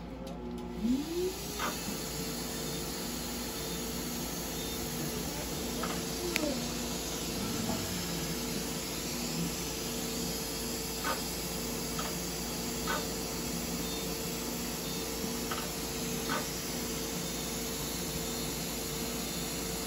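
Surgical suction hose running at the incision during laser surgery: a steady hiss of air being drawn in, over a machine hum. A low tone pulses on and off about once a second, with a few faint clicks.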